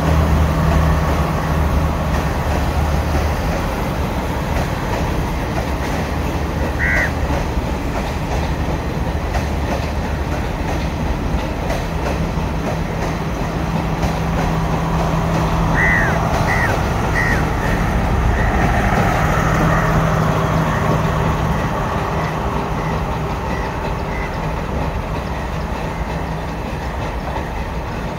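Udarata Menike express, a Sri Lanka Railways Class S14 diesel multiple unit, passing at low speed with a steady diesel engine drone and wheels running over the tracks. A few brief high squeals, at about seven seconds and again around sixteen seconds in, are typical of wheel flanges grinding on the pointwork. The sound eases slightly as the train draws away.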